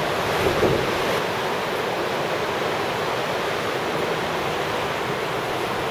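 Fast white water of the Niagara River rushing in a steady, loud roar, the whole river in spate.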